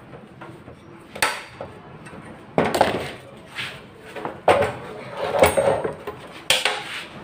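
Metal parts of a gas stove clattering and knocking as they are handled, about six irregular knocks with a short ring after each.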